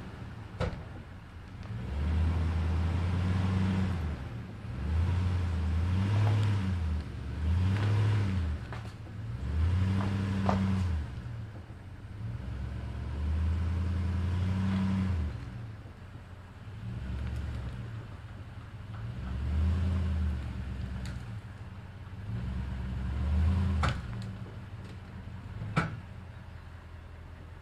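A vehicle engine running low and deep, its revs swelling and easing back again and again every second or two, with a few sharp knocks in between.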